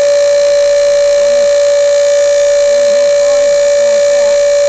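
Steady, loud electrical whine holding one pitch with overtones above it, from equipment running off a battery-fed power inverter.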